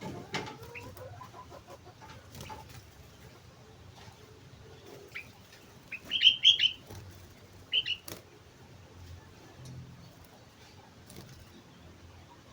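Sooty-headed bulbul (kutilang) calling: a quick run of bright, high whistled notes about six seconds in, then two more notes a second later, with scattered light clicks and taps between.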